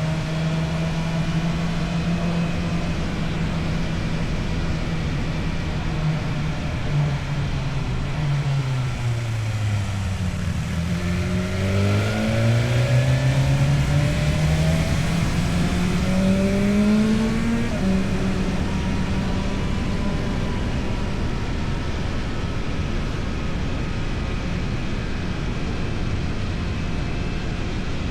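Motorcycle engine through an Akrapovic exhaust, running at a steady pace. The revs fall about a third of the way in, then the engine note climbs louder for several seconds under acceleration before dropping back as it shifts up and holds steady again.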